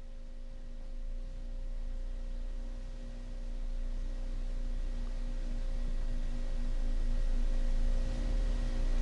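Steady electrical hum: a low drone with faint steady tones above it, slowly getting louder.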